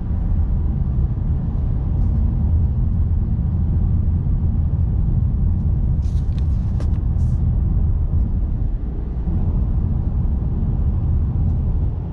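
Steady low road rumble inside the cabin of a 2024 Cadillac CT5 cruising, its four-cylinder engine running quietly in tour mode. A few brief clicks come about six to seven seconds in.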